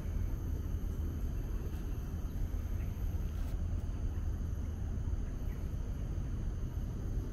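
Outdoor ambience: a steady low rumble with faint, steady high-pitched tones above it, and a light tap about three and a half seconds in.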